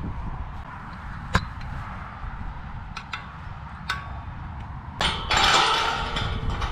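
A few sharp clicks and knocks, the loudest about a second and a half in, over a low wind rumble on the microphone. Near the end comes a burst of close rustling.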